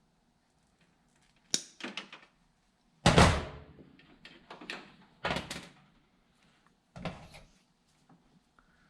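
A handful of separate knocks and clattering handling noises, about five in all, the loudest about three seconds in.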